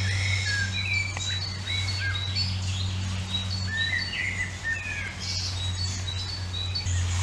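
Small birds chirping and calling in many short whistled notes, over a steady low hum.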